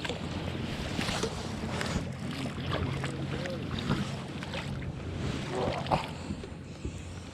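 Boat motor running steadily, with wind noise on the microphone and a few light knocks.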